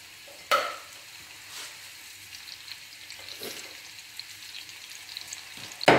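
Sliced onions sizzling softly and steadily in hot oil in a frying pan, at the start of frying. A few light knocks sound over the sizzle, the loudest about half a second in and another just before the end.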